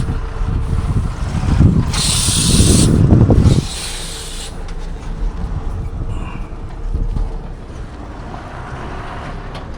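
Tata Harrier driving over a rough, unpaved mountain road: an uneven rumble of tyres and suspension that is loudest in the first few seconds. A loud burst of hiss runs from about two seconds in to about four and a half, and after that the rumble settles lower with scattered knocks.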